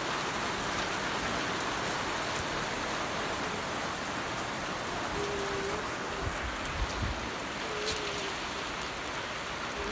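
Steady rain falling, an even hiss, with a few faint low knocks about two-thirds of the way in.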